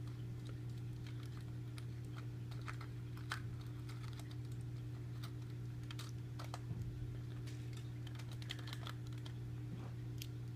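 Light, scattered clicks and scratches of a knife cutting and picking at aluminum foil pressed over a die-cast metal toy car, over a steady low hum.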